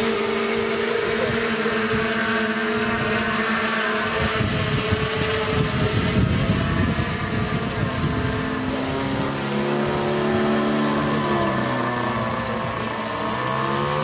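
Electric quadcopter camera drone flying, its propellers giving a buzzing whine of several tones that step up and down in pitch as it manoeuvres, most clearly in the second half. A few seconds of low rumbling come midway.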